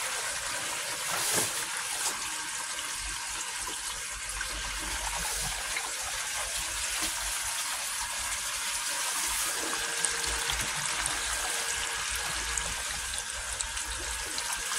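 Water running steadily through a pumped koi pond filter system, a continuous rushing and trickling through the filter chambers and pipework.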